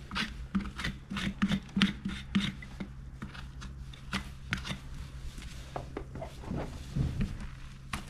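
Hoof knife paring a horse's sole and frog in a run of short scraping cuts, several a second at first and sparser later, over a steady low hum.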